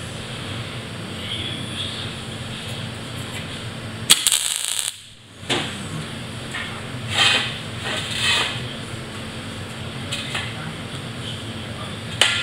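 MIG welder tack-welding a steel band into a cut steel wheel rim: one loud half-second hiss about a third of the way in, then two shorter crackling bursts a few seconds later, over a steady low hum.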